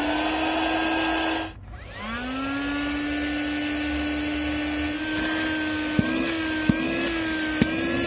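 Windek RCP-D23A 12 V handheld car vacuum's motor running with a steady whine. It cuts off about one and a half seconds in, spins back up half a second later and runs on, its pitch wavering slightly in the second half, with three short sharp ticks.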